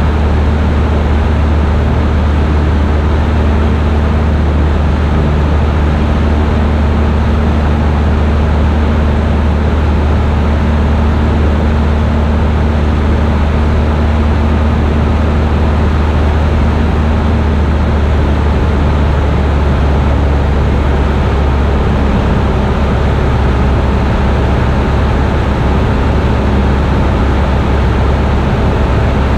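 A Cessna light aircraft's piston engine and propeller running steadily in flight, heard from inside the cockpit with a low drone and constant airflow noise. A faint higher hum in the engine note dies away a little past halfway.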